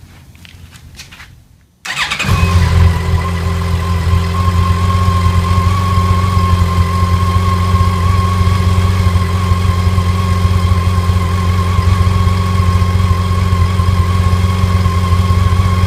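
Yamaha FJR1300's inline-four engine started up about two seconds in, catching quickly and then idling steadily until it is shut off suddenly at the end. It is run briefly after the refill to circulate the fresh oil and fill the new oil filter before the level is rechecked.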